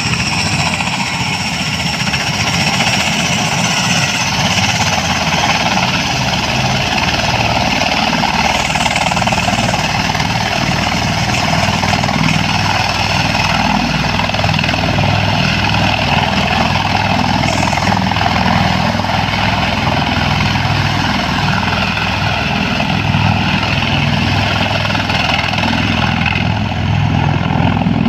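A V-22 Osprey tiltrotor's engines and rotors running steadily on the ground, growing slightly louder right at the end as it readies to lift off.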